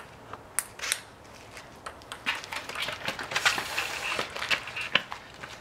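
Ping-pong ball clicking as it is hit with paddles and bounces on the table and the concrete: a few sharp separate clicks, then from about two seconds in a quick flurry of clicks with a rushing hiss that stops about five seconds in.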